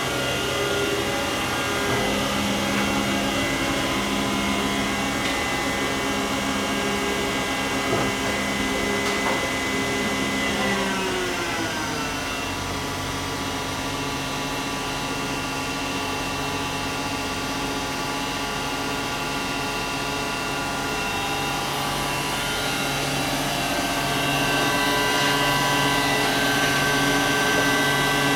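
Hwacheon Mega 95/3000 CNC flatbed lathe running a test program: a steady whine of the spindle drive made of many tones. The pitch drops about eleven seconds in as the spindle changes speed, then holds, and the sound grows a little louder near the end.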